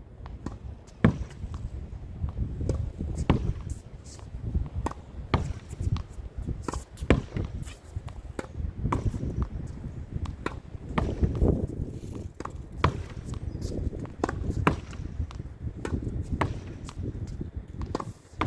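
Tennis rally against a practice backboard: a sharp pop of a racket striking a regular-weight, regular-compression tennis ball, then the ball hitting the wall and bouncing on the court, repeating about once a second.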